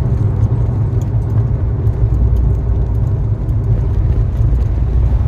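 Fiat 20v turbo car driving, heard from inside the cabin: a loud, steady low engine and road drone that deepens a little about two seconds in.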